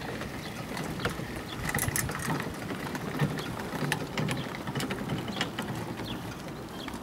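Irregular clicks and knocks from a hand-cranked davit winch and its chain and sling hardware, over a steady low rumble.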